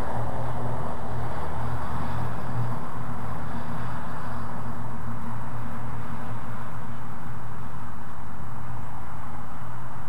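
Wind blowing across the microphone: a steady low rumble with a rushing hiss.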